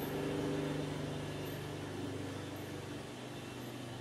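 Steady low mechanical hum with a few steady pitched tones, easing off about two to three seconds in.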